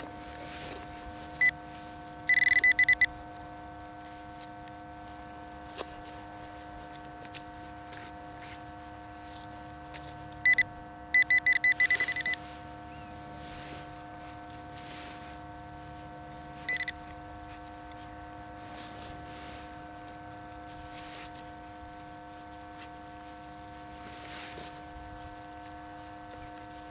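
Handheld metal-detecting pinpointer probe beeping as its tip is worked through loose soil, signalling metal close by while hunting a tiny target. It gives a few single beeps and two fast runs of pulsing beeps, one early and one near the middle, over a steady faint electronic hum.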